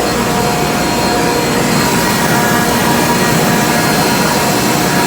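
Ammonia refrigeration compressors running: a loud, even machinery drone with several steady tones held through it.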